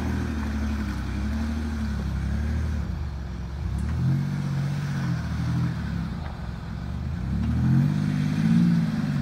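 Land Rover Discovery 3's 2.7-litre TDV6 diesel engine pulling the vehicle slowly through deep mud ruts. The engine note rises and falls as the throttle is opened, about four seconds in and again near the end, where it is loudest.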